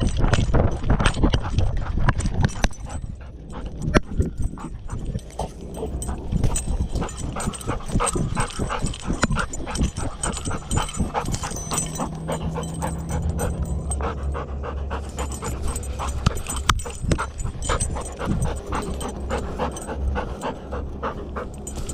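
Golden retriever panting fast and close, heard from a camera strapped to his chest, with knocks and jostling from the harness as he moves.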